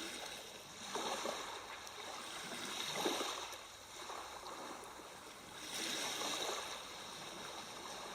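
Sea waves washing softly onto a shore, rising and falling in gentle swells every two to three seconds.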